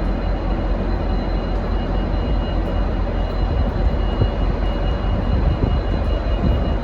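V/Line N-class diesel-electric locomotive running steadily: a deep, even engine drone with a faint steady high whine over it.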